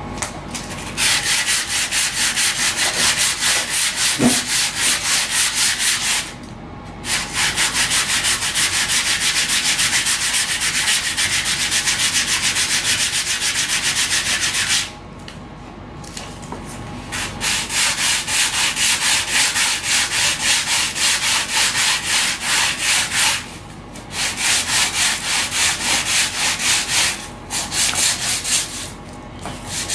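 Hand sanding of a laminated RC-plane aileron's bottom edge: quick back-and-forth rasping strokes, paused briefly a few times. The sanding shapes a roughly 45 degree bevel so the aileron can deflect fully down.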